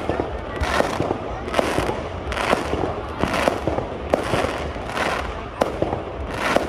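Fireworks going off: sharp bangs and crackles, with a short hissing burst repeating about once a second.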